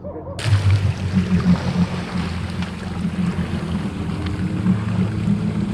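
Jet ski engine running at low speed with a steady low hum, over water rushing. It starts abruptly about half a second in.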